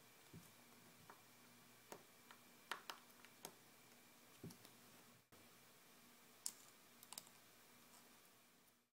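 Faint, scattered clicks of a small screwdriver and tiny metal parts being handled while an iPhone 4S is taken apart. The clicks come in small clusters, loudest about three seconds in and again near six and a half seconds.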